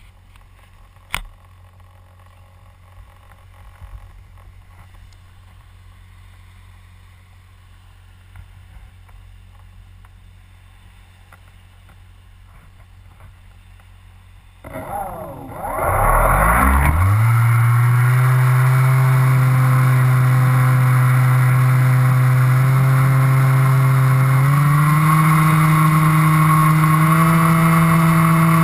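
Low wind rumble with a sharp click about a second in. About fifteen seconds in, a model aircraft's propeller motor starts, climbs quickly in pitch and runs loud and steady, stepping up in pitch about ten seconds later.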